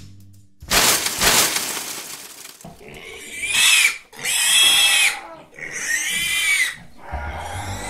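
Pig squealing three times, each squeal about a second long and arching up then down in pitch, after a loud noisy whoosh lasting about two seconds.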